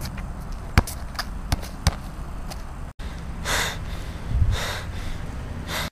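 A basketball bouncing on an asphalt driveway: a few sharp, separate bounces in the first half. In the second half come three breathy hisses close to the microphone.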